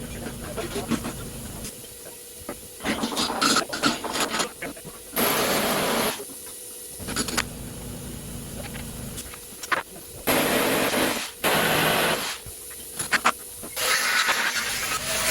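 Repeated bursts of hissing, each about a second long, with clicks and knocks between them.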